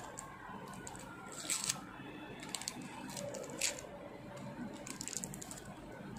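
Aluminium foil crinkling as a foil-wrapped pen is handled and taped down, with several short, sharp crackles amid quieter rustling.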